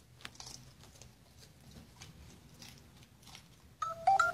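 Dog chewing crisp lettuce leaves, faint crackly crunches. Near the end a louder electronic chime of a few stepped notes cuts in over it.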